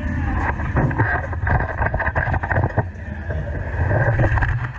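Dirt late model race car's V8 engine running hard, heard from under the chassis, with frequent sharp knocks and rattles from the chassis and rear end on the dirt track.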